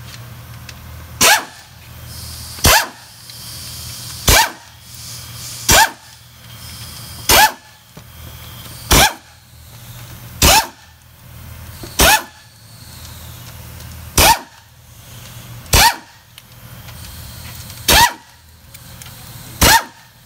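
A short, sharp sound repeats at an even pace, about every second and a half, about a dozen times, over a steady low hum.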